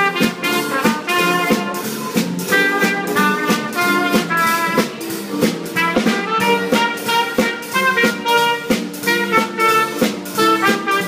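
Small jazz band playing live, with trumpet leading over piano, bass and a drum kit keeping a steady swing beat.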